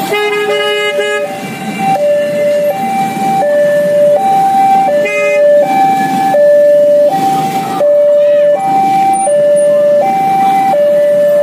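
Railway level-crossing warning alarm sounding its two-tone electronic signal, alternating a lower and a higher tone about every 0.7 seconds, the warning that a train is coming and the barrier is down. A horn sounds briefly near the start and again about five seconds in.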